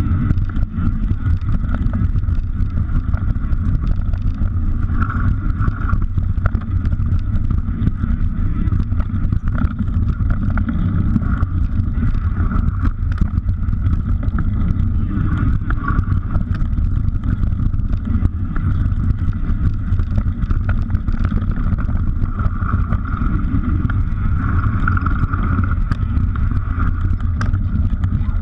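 Mountain bike riding down a dirt trail as heard by an action camera on the moving bike or rider: a steady rumble of wind on the microphone and tyres rolling over dirt, with frequent small rattles and knocks from the bike over bumps.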